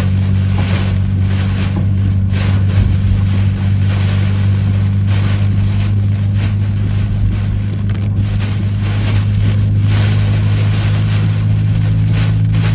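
Steady low drone of a vehicle on the move, overlaid by gusty wind and rain noise that keeps swelling and easing.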